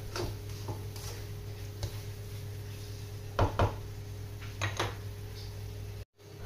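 A spatula scraping and knocking against a nonstick wok as tuna is stirred, with a pair of louder knocks about three and a half seconds in and another pair about a second later, over a steady low hum.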